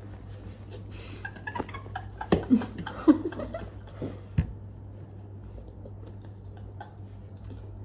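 Eating sounds as a bowl of spicy noodles is started: short clicks and brief vocal sounds in the first half, then only faint scattered ticks, over a steady low hum.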